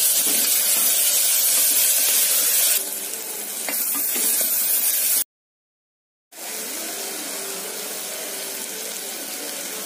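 Chopped onions sizzling as they fry in hot oil in an aluminium pressure-cooker pan, turned with a wooden spatula. The sizzle dips a little about a third of the way in, cuts out completely for about a second in the middle, then comes back quieter with chopped tomatoes added to the pan.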